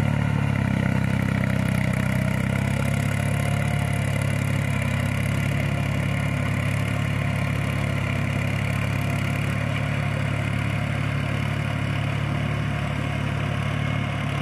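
Tractor's diesel engine running steadily at an even pitch while the tractor works a flooded paddy field.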